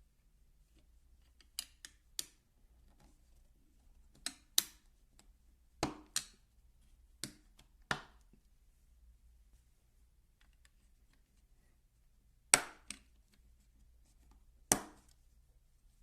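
A dozen or so sharp clicks and knocks of small hard parts, often in quick pairs, with a pause of several seconds in the middle. The loudest come a little under a third of the way in and again about three-quarters through.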